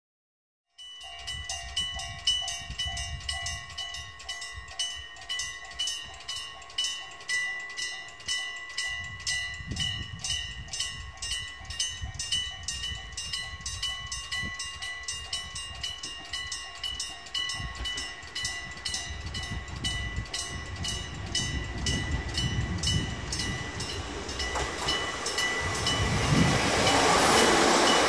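Japanese railway level-crossing alarm ringing its rapidly repeating electronic bell. From about two-thirds of the way through, an approaching electric train's rumble builds and grows loudest near the end as the train reaches the crossing.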